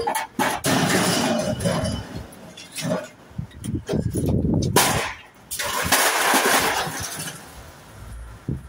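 Scrap metal being handled and pulled out of the back of a van: irregular scraping, rattling and clanking of metal items against the bare metal van floor, in several loud bursts with short pauses between.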